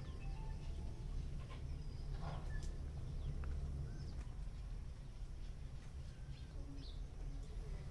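Quiet background ambience: a steady low hum with faint, scattered short bird chirps.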